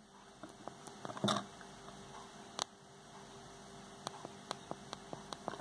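Small tactile push-button switch on the Amazon Dash button's circuit board pressed with a fingertip, giving faint, sharp clicks at irregular intervals, with one louder click about two and a half seconds in.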